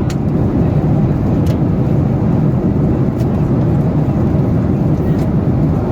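Steady low cabin roar of a Boeing 767-400 airliner, with engine and air noise heard from an economy seat. A few faint light ticks are heard in the cabin.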